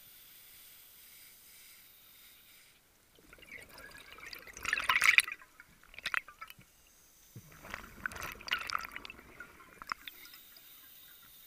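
Scuba diver's exhaled breath bubbling out of the regulator, twice, each burst lasting about two seconds, with a few sharp clicks between them and at the end.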